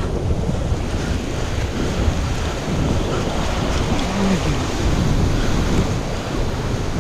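Ocean swell surging and breaking in whitewater against the base of a sea cliff, mixed with wind buffeting the microphone; a steady rushing noise.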